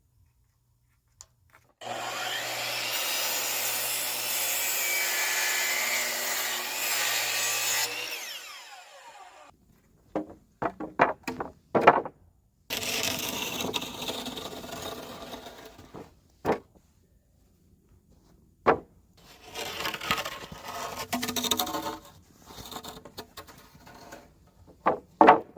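A power saw running and cutting wood for about six seconds, then winding down. It is followed by several sharp wooden knocks and more stretches of rasping sawing.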